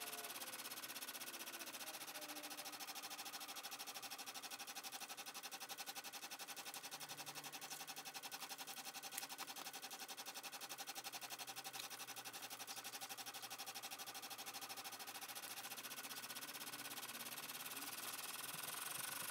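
Baby Lock Enterprise ten-needle embroidery machine satin-stitching letters, its needle bar going in a rapid, even rhythm, with one sharp click about nine seconds in.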